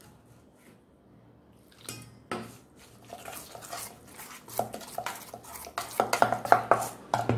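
Batter being mixed by hand in a stainless steel bowl: rapid clicks and scrapes of the steel bowl, starting with a few ticks about two seconds in and growing busier and louder toward the end.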